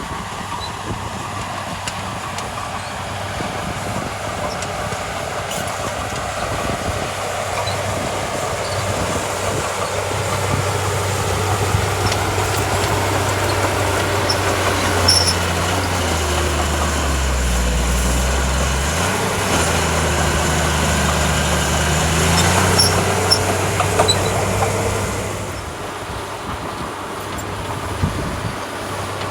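Diesel engine of heavy earthmoving machinery running steadily. Its pitch drops lower for about two seconds just past the middle, then rises back, and the sound fades a little a few seconds before the end. A few short clanks are heard along the way.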